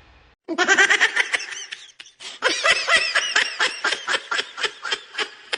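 A person laughing hard, starting about half a second in: a first run of high-pitched laughter, a brief break, then a long string of rapid short laughs at about five a second.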